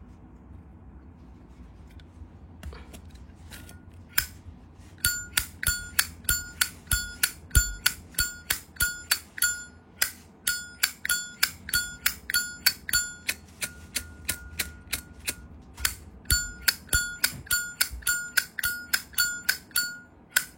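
Brass Zippo lighter's lid flicked open and snapped shut again and again from about four seconds in, about two sharp metallic clacks a second. Each clack rings on with a clear bell-like tone.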